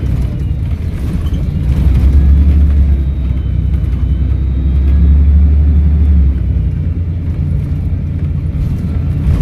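Volvo B7RLE single-deck bus's diesel engine running with a heavy low drone, strongest for the first six seconds and easing a little after that, with a faint turbo whistle above it.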